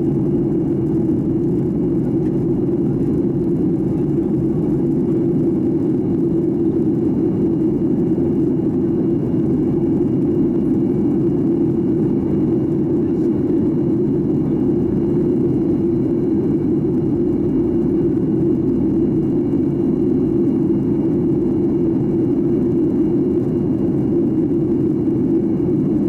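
Steady cabin noise inside a Boeing 737-800 airliner in flight: an even, unbroken rumbling hum, with a faint steady high whine above it.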